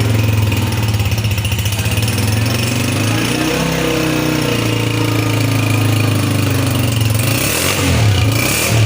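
Honda CG125's single-cylinder four-stroke engine idling steadily, with a brief rise in revs about three seconds in and a few short throttle blips near the end.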